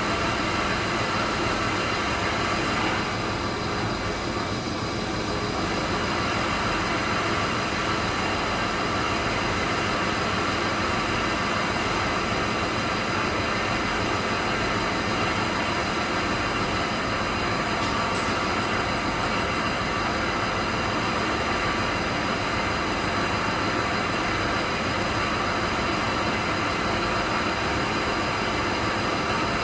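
Textile dyeing-plant machinery running steadily: a dense, even mechanical noise with several constant hums and whines. The jet dyeing machines are the likely source.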